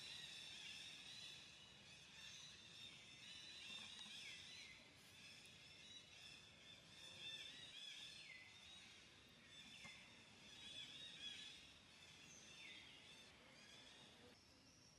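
Faint outdoor ambience: a dense, constant chorus of high-pitched chirping, with now and then a call that slides down in pitch.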